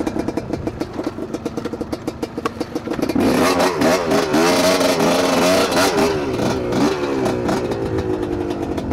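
GR7 250 two-stroke enduro motorcycle's single-cylinder engine running under way: steady for the first few seconds, then louder and revving up and down with the throttle from about three seconds in, and the revs falling away slowly near the end.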